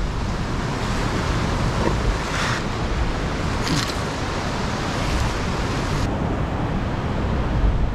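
Ocean surf surging and breaking against the rocks at the foot of the sea cliff, a steady wash of noise with wind rumbling on the microphone.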